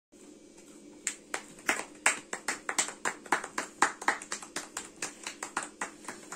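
A few people clapping their hands. Irregular claps at several a second, starting about a second in.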